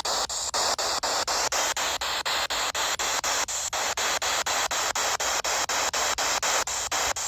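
Spirit box radio sweeping through stations: a steady hiss of static chopped by short dropouts about five times a second.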